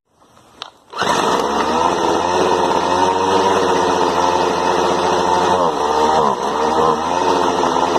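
Poulan Pro string trimmer engine catching about a second in and running steadily, dipping briefly in speed a little past halfway, then ending abruptly near the end. It fires right up now that its detached fuel line has been reconnected, though the owner thinks the carburetor needs some tuning.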